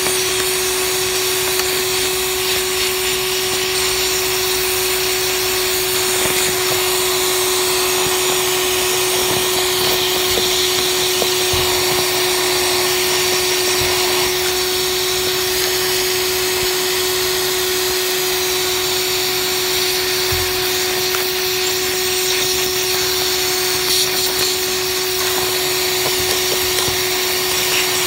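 DeWalt 20-volt cordless vacuum running steadily with a constant motor whine, drawing air and loosened debris up through a clogged windscreen cowl drain tube.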